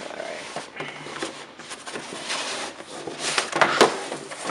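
Cardboard packaging rustling and scraping as a box is handled and its outer sleeve is worked off, loudest about three seconds in.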